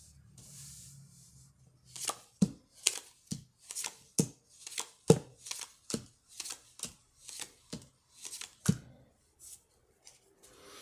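Tarot cards being dealt one by one from a hand-held deck onto a cloth-covered table, each landing with a sharp snap, about two or three a second, after a soft rustle of the cards at the start.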